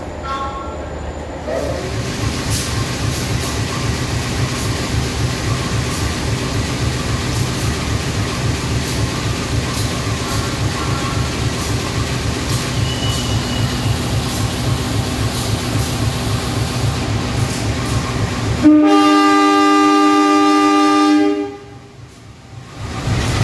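Diesel locomotive engine running with a steady low, throbbing rumble, then one long, loud train horn blast of about two and a half seconds near the end, after which the engine rumble resumes.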